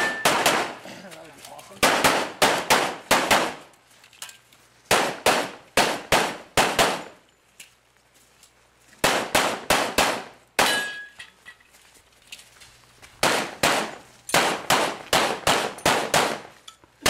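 Pistol gunfire in quick strings of several shots, with short pauses between the strings. A steel target rings briefly after a hit about ten and a half seconds in.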